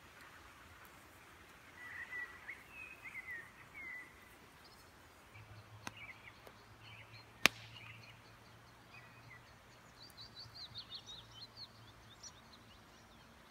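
Small birds singing in short chirping phrases, a couple of seconds in and again in the second half, over a quiet outdoor background. One sharp click about halfway through stands out as the loudest sound.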